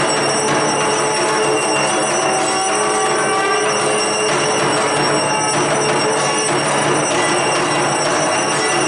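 Puja bells ringing continuously over a steady din with a musical quality, without pause.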